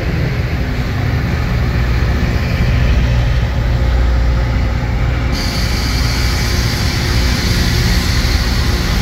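Loram rail grinder train passing close by, with a steady heavy rumble from its engines and wheels. About five seconds in, a harsh high hiss suddenly joins as the cars with grinding stones on the rail come past, throwing sparks.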